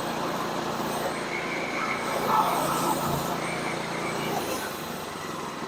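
Gasoline engine of a portable sawmill running steadily.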